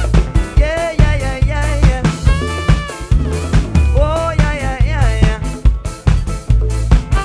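Live band playing an upbeat groove: drum kit, bass and keys with a lead melody line that slides between notes.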